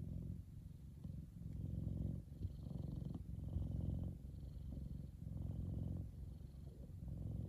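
F2 Savannah cat purring while relaxed and dozing. The low, fluttering purr swells and eases in stretches of a second or two with each breath.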